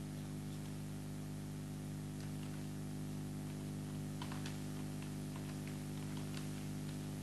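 Scattered, irregular keystrokes on a computer keyboard while text is typed, over a steady low electrical hum.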